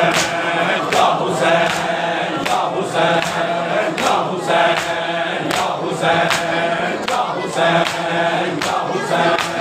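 Men chanting a noha, a Muharram lament, over a rhythmic beat of chest-beating (matam) slaps, about two strikes a second.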